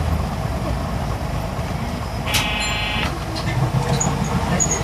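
Isuzu Erga city bus's straight-six diesel running, heard from inside the cabin as the bus slows to a stop. About two and a half seconds in, a short electronic beep sounds for under a second.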